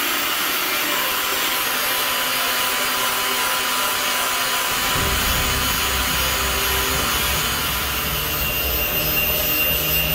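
A 180 mm (7-inch) angle grinder's disc grinding into a steel knife blank cut from a tractor plow, with a steady high hiss. About five seconds in, a deeper rumble joins as the disc bears in.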